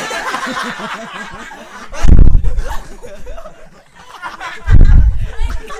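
People snickering and laughing close to the microphone, broken by two short, very loud low thumps of the microphone being handled or bumped, about two seconds in and again near the end.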